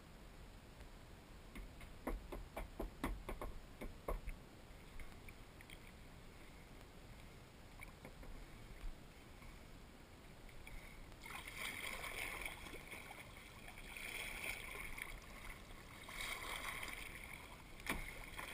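Kayak paddle strokes: the blade dipping and pulling through calm water in a splashing swish about every two seconds through the second half. Before that comes a quick run of light clicks and knocks.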